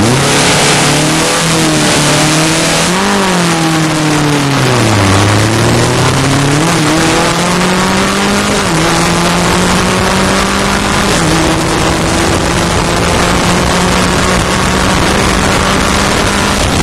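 Open-wheel single-seater race car's engine, heard onboard, accelerating hard from a standstill. The engine note climbs, sags and climbs again, then drops in steps at several upshifts as speed builds. Wind and road noise run beneath it.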